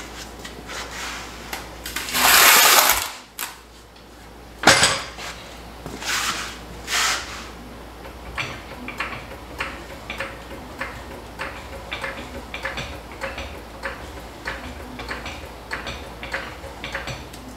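Scraping and a sharp metal clank as a TH350 transmission case is shifted onto a hydraulic floor jack, then the jack's handle being pumped: steady short metallic clicks about twice a second as it raises the load.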